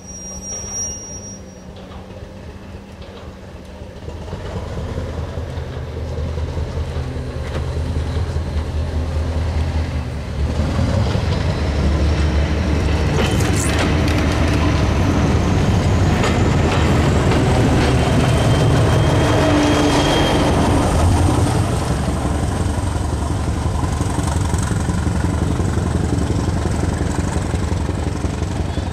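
British Railways Class 205 'Thumper' diesel-electric multiple unit pulling past, its English Electric four-cylinder diesel engine running under power. The engine grows louder from a few seconds in, is loudest midway as the unit goes by, then eases slightly. A thin high whine rises in pitch as the unit picks up speed.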